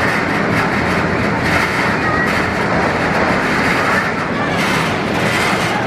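Amusement-park train running along its track, heard from on board: a steady rumble and clatter of wheels on rail, with a few brief high wheel squeaks.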